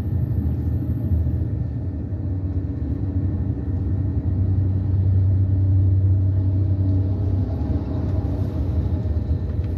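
Steady low rumble of a moving road vehicle: engine and tyre noise while driving along at a steady pace.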